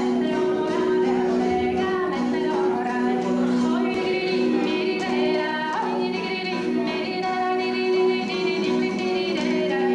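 A woman singing into a microphone through a PA, her melody gliding over steady, sustained low accompanying notes.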